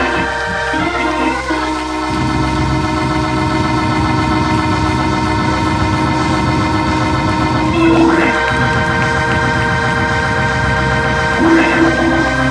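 Organ holding sustained chords, moving to a new chord with a quick upward run about eight seconds in and again near the end.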